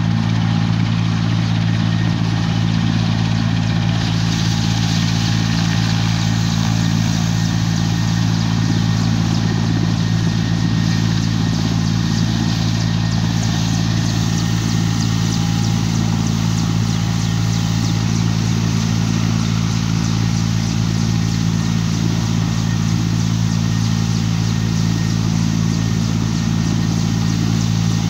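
Ambulance helicopter running steadily on the ground, its engines and rotor making an even, loud hum with no rise or fall.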